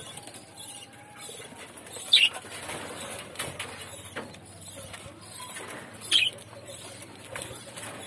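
Budgerigars nibbling at fresh coriander, with faint clicks and rustles of beaks on leaves and stems, and two short, loud chirps, one about two seconds in and one about six seconds in.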